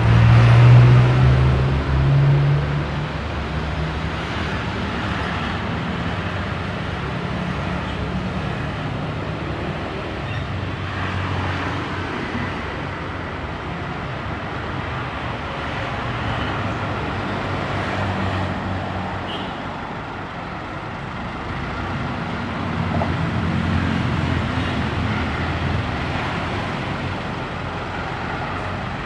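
Diesel engine of a Hino Dutro flatbed tow truck running, loudest in the first few seconds and rising again in a few swells as the truck manoeuvres.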